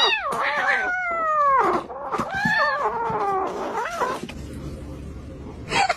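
A cat meowing: a string of drawn-out, wavering calls, several sliding down in pitch, for about the first four seconds, then quieter.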